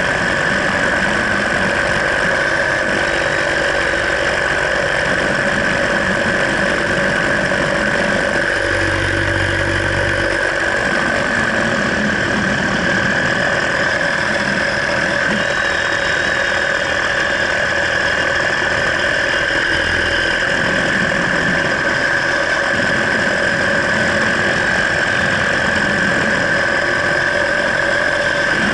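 Paramotor engine and propeller running steadily at constant power in flight, an even drone with a brief low rumble about nine seconds in.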